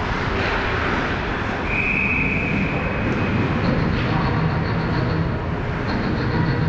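Steady background noise of an indoor ice arena during a hockey game, with distant play at the far end of the rink. About two seconds in, a referee's whistle sounds once, one steady high note lasting about a second and a half, stopping play.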